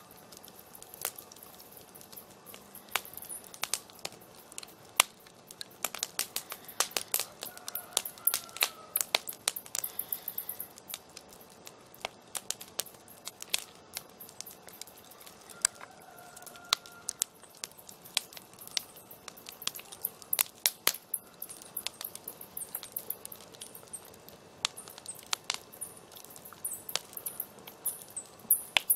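Campfire crackling, with irregular sharp pops and snaps over a soft steady hiss of the flames.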